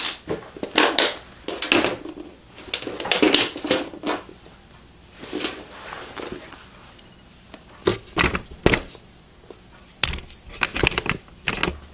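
Hands handling cables and parts inside a desktop computer case: irregular clicks, knocks and rustling, with a few sharper knocks about two-thirds of the way through.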